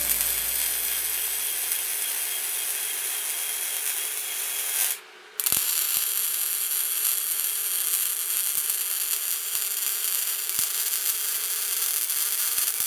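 Electric arc welding, crackling and hissing steadily as the weld-on hardtail section is welded to the motorcycle frame. The arc stops briefly about five seconds in, then starts again for another bead.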